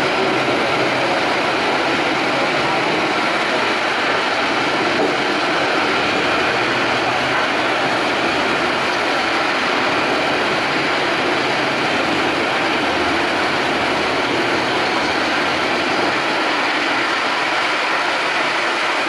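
Komptech Axtor 6010 wood shredder and Liebherr LH22M excavator running together as wood is fed into the shredder: a loud, steady machine noise.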